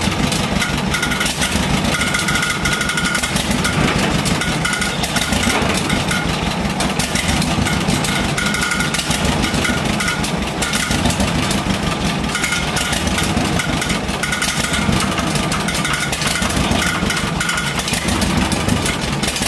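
1957 John Deere 420C crawler dozer's two-cylinder engine running steadily, with the cooling fan clanking at the front of the engine.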